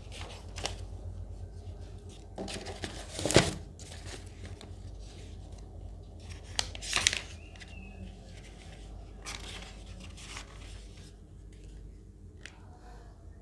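Handwriting strokes: a pen scratching across the writing surface in short scratchy bursts over a low steady hum.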